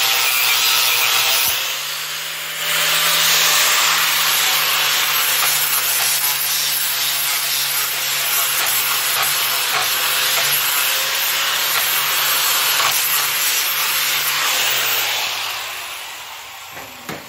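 Angle grinder with a flap disc grinding the corner of a steel flat bar to round it off: a steady, loud rasp over the motor's whine. The rasp eases off briefly about two seconds in, and near the end the grinder is switched off and winds down.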